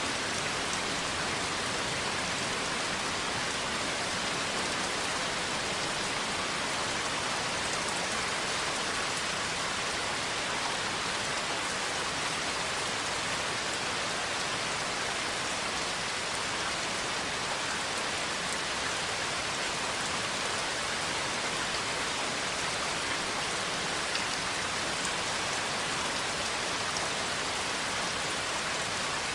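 Steady rain falling, with a few faint drop ticks in the even hiss.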